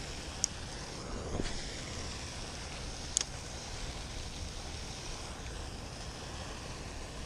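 Steady outdoor wind rumble on the microphone, with two short, sharp high clicks about half a second and three seconds in.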